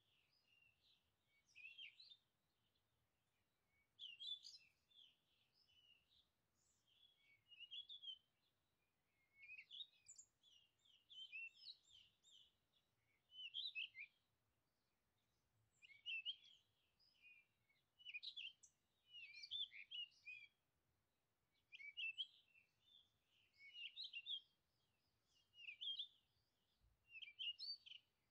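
Faint songbird song: short, quick chirping phrases repeating about every two seconds.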